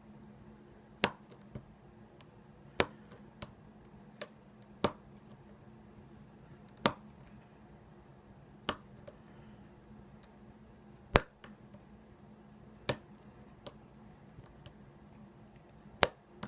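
Sharp, brief clicks from a lock pick working the pins of an ASSA 700 pin-tumbler lock: about a dozen, spaced unevenly one to two seconds apart, over a faint steady hum.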